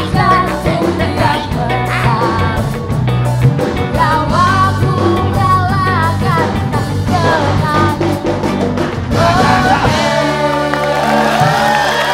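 Live band playing a pop song with a voice singing over a steady bass line; the music changes to a new passage about ten seconds in.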